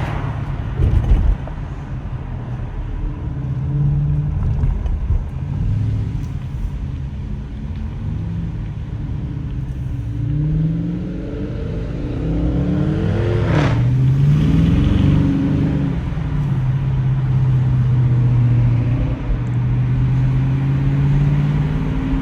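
Car engine running while driving. Its pitch climbs and falls back several times as it accelerates, with a louder surge just past the middle.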